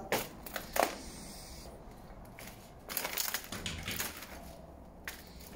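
Footsteps crunching on grit and debris: two sharp crunches near the start, a denser run of crunching in the middle, and one more near the end.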